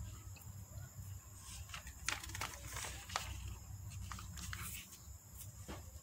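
A glossy paper catalogue page being turned and smoothed flat by hand: faint rustles and brushing of paper, a few short crackles, over a low steady hum.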